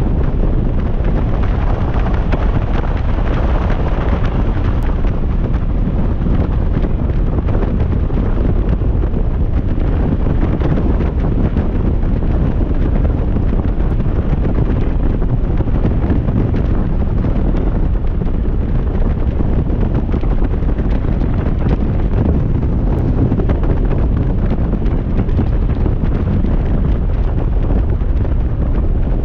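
Wind buffeting the microphone on a motorcycle at highway speed: a steady, loud low noise with no breaks.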